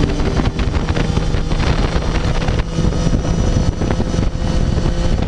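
Triumph Daytona 675R's three-cylinder engine running at steady, moderate revs while the bike cruises, as during its break-in, with wind buffeting the microphone.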